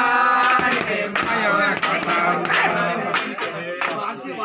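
Voices singing a Nepali folk song together, with sharp claps or beats keeping time.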